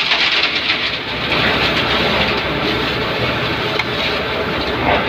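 Water from a hose spraying into the steel discharge chute of a concrete batching plant, over the steady running noise of the plant's machinery.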